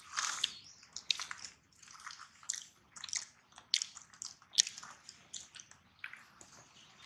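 Long-tailed macaques making wet mouth sounds at close range: an irregular run of short smacks and clicks, several a second, the loudest about four and a half seconds in.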